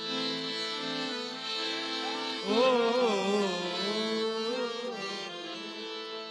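Instrumental opening of a Gujarati devotional bhajan: sustained reed chords of a harmonium, joined about two and a half seconds in by a louder melody line that slides and wavers between notes.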